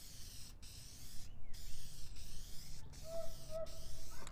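Aerosol can of automotive clear coat spraying: a hiss in several passes, each broken off by a short pause.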